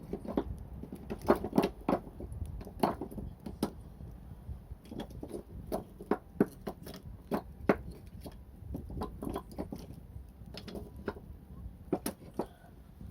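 Wood fire crackling: irregular sharp pops and snaps, several a second at times, over a low steady rumble.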